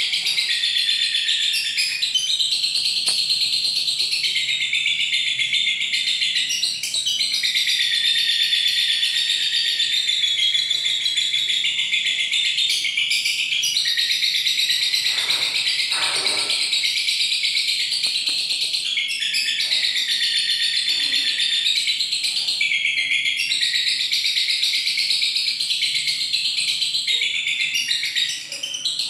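Lovebird giving its long, rapid, high-pitched chattering song (the 'ngekek'), running almost without a break and pausing briefly every few seconds.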